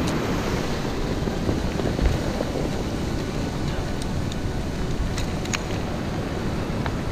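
Surf washing in over a cobble beach, with wind on the microphone. A few small clicks, a little after the middle.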